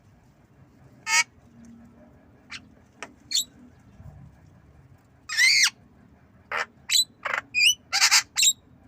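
Javan myna giving short, harsh squawking calls, some with whistled glides: a few scattered calls, one longer call around the middle, then a quick run of about six squawks near the end.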